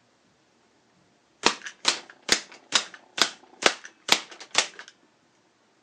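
Handmade wooden semi-automatic rubber band pistol firing eight rounds in quick succession: eight sharp clacks, a little under half a second apart, as each trigger pull advances the rod drive and releases a band.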